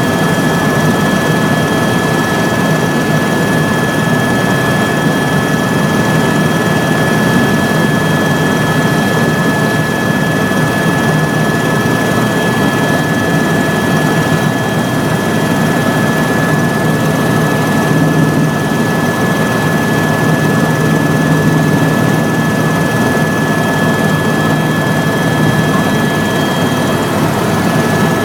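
Tour helicopter in flight: steady engine and rotor noise with a constant high-pitched whine over it.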